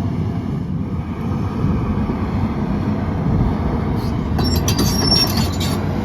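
XCMG XE210CU track excavator travelling on its steel tracks with the Cummins diesel running under load. From about four seconds in, high squeaks and clatter from the track chains join the engine.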